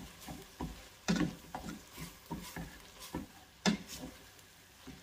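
Ground beef, onions and bell peppers being stirred and scraped around a stainless steel pan with a spatula: a run of irregular scraping strokes, two of them louder.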